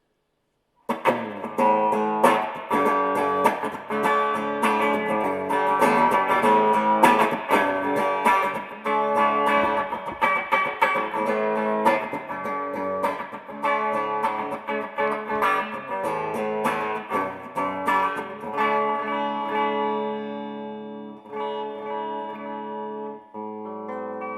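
Tokai Love Rock, a Les Paul-style electric guitar, being played: after about a second of silence, a busy run of picked notes and chords, easing near the end into quieter, longer-held chords.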